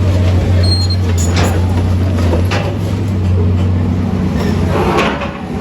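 A large engine running steadily with a low drone, with a few sharp knocks scattered through it. The drone drops away near the end.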